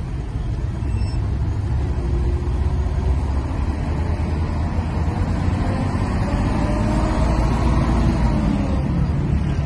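Steady road and wind rumble of a moving car, heavy in the low end, with a faint tone that rises and falls in the second half.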